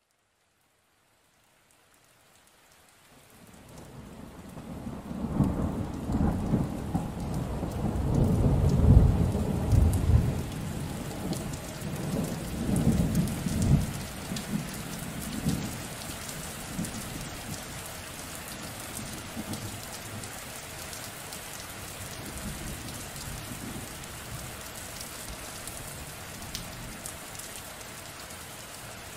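A thunderstorm: rain falling with a long roll of thunder. The sound fades in from silence over the first few seconds, and the thunder rumbles loudest in the first half. It then dies away, leaving steady rain.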